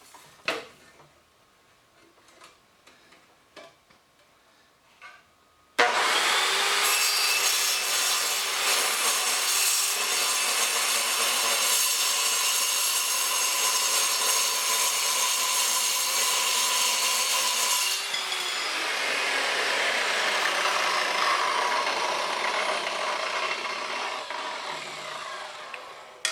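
Milwaukee 6370-21 8-inch metal cutting circular saw cutting through steel plate: it starts abruptly about six seconds in, cuts steadily and loud with a high ringing screech for about twelve seconds, then the sound turns duller and tapers off near the end. Before it starts there are only a few faint clicks.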